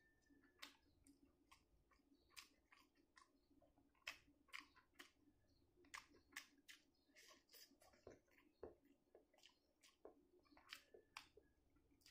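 Faint close-up sounds of a person eating egg curry and rice by hand: chewing and wet mouth smacks, heard as a string of sharp, irregular clicks.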